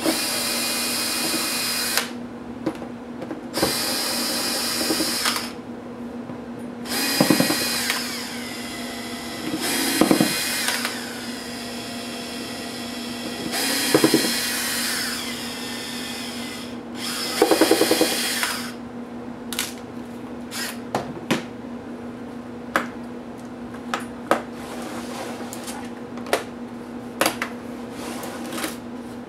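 Cordless electric screwdriver whirring in six short bursts, each a second or two long, some falling in pitch, as it backs screws out of a laptop's display assembly. After that come sharp clicks and taps as the parts are handled, over a steady low hum.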